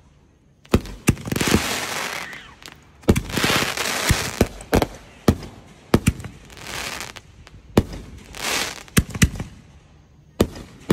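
Aerial fireworks going off: a string of sharp, irregularly spaced bangs as the bursts break overhead, with stretches of crackling hiss between them.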